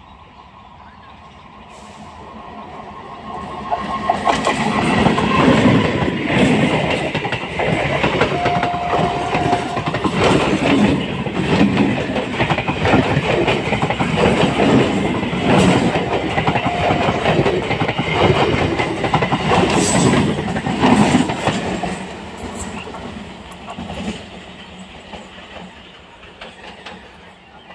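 An Indian Railways electric multiple unit (EMU) local train approaching and passing close by, its wheels clattering over the rail joints. The sound builds over the first few seconds, stays loud while the coaches run past, and fades after about 22 seconds as the train moves away.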